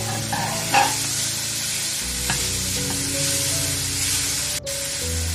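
Fusilli pasta and tomato-onion masala sizzling in a nonstick frying pan while a silicone spatula stirs and scrapes through it, with one sharper knock of the spatula about a second in.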